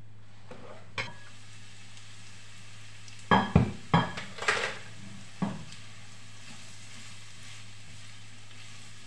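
Glass pan lid knocking and clinking a few times as it is lifted off a frying pan of carrot strips and set down, then a spatula stirring the carrots with a faint sizzle, over a steady low hum.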